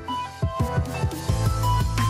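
Electronic background music: a simple melody over a steady kick-drum beat, with a deep bass coming in partway through.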